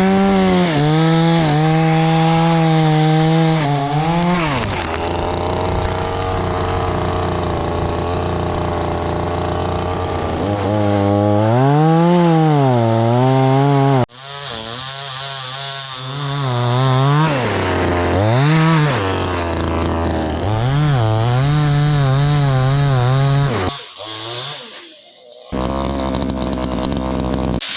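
Two-stroke chainsaw at high revs, its pitch dropping and holding low for several seconds as it cuts into wood. It is then revved up and down repeatedly, with a brief dip near the end.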